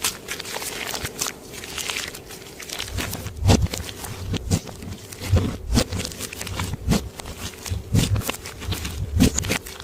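Clear slime being worked by hand: crackly, sticky clicking for the first few seconds, then from about three seconds in, a run of short squishy pops.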